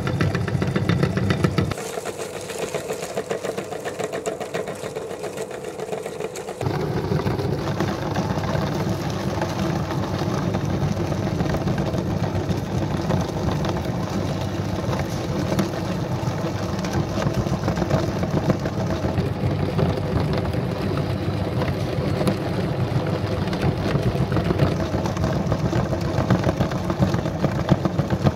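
Electric meat grinder running steadily while mincing a whole tilapia, its motor and auger grinding the fish and pressing it out through the plate. The low hum thins out about two seconds in and comes back fuller about six and a half seconds in.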